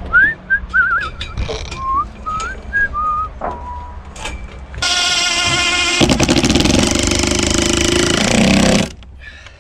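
A person whistles a short tune. About five seconds in, a power tool starts up and runs loudly and steadily for about four seconds, then stops.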